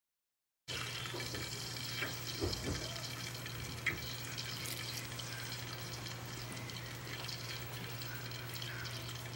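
Rice being washed in a pot: water running and sloshing as a plastic rice paddle stirs long-grain rice, with a few light knocks of the paddle against the pot over a steady low hum. The sound starts suddenly just under a second in.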